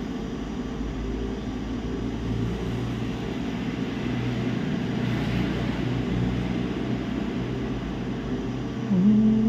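A steady low machine hum with fan-like noise. Near the end, a louder held tone starts with a short rise in pitch and lasts about a second.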